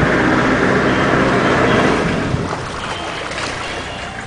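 Narrowboat engine running steadily at low speed, with a rushing noise over it that is loudest for the first two seconds and then dies down.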